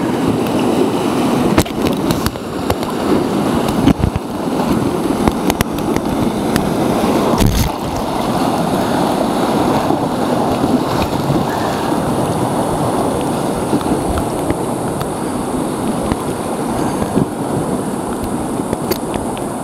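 River rapids rushing and splashing around an inflatable whitewater raft, a steady churning of water. A few sharp knocks stand out, about 2, 4 and 7.5 seconds in.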